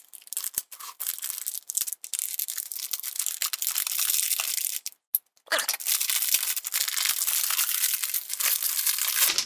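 Packing tape being peeled and torn off a package of books: continuous crackling, tearing noise, played back sped up, with a short pause about five seconds in and louder tearing after it.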